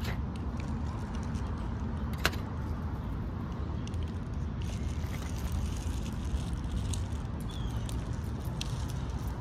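Steady low rumble of distant road traffic, with a few faint clicks and one sharp tick about two seconds in.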